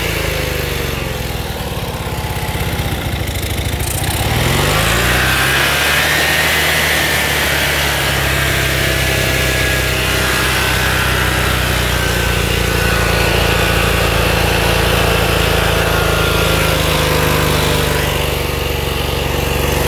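Riding lawn tractor's small engine running, revving up about four seconds in, then holding a steady higher speed.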